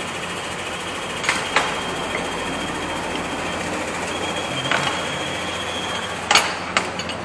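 Metal hand tools clinking on a steel workshop tool tray, a few sharp clinks about a second and a half in, near five seconds and twice near the end, the loudest near the end, over a steady workshop background hum.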